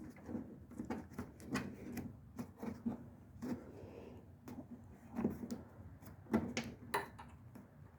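Irregular clicks, taps and knocks of hands working the plastic air-intake cover and its brackets under a Tesla Model 3's hood while foam is fitted to stop it rattling.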